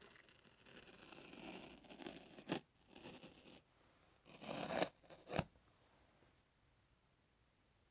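A small pocketknife blade scraping and slicing at packing tape on a cardboard box, in several scratchy strokes, with a sharp tap about two and a half seconds in and another about five and a half seconds in.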